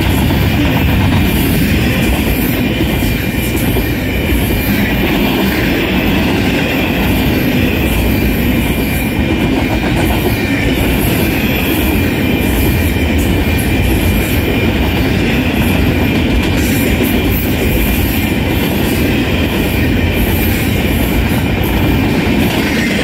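Double-stack intermodal freight train passing close by: a loud, steady rumble and clatter of the well cars' wheels on the rails. A thin, steady high tone runs through it.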